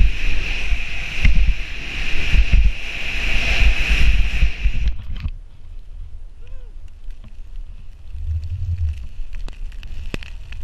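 Skis rushing through deep powder snow, with wind buffeting the camera microphone in a loud, steady rush. It cuts off abruptly about five seconds in to a much quieter stretch of faint snow hiss, scattered clicks and low rumbles.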